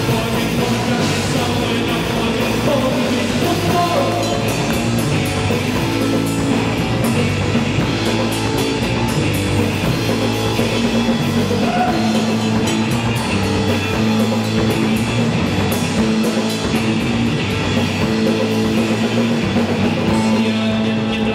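A rock band playing live, loud and steady: electric guitar, bass guitar and drum kit.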